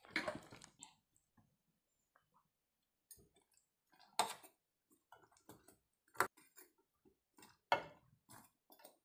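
Metal spatula tapping and scraping against a metal pan while fried bread slices are turned in milk: soft ticks and scrapes with three sharp clicks about two seconds apart, starting a few seconds in.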